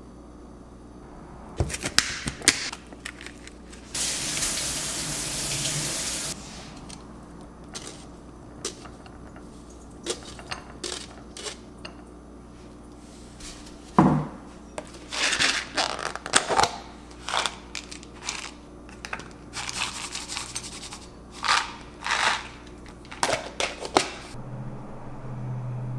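Kitchen food-prep handling: a metal spoon clinks and scrapes against a glass bowl, water runs for about two seconds, then a string of taps and rustles as blueberries are tipped from a mesh strainer into the bowl.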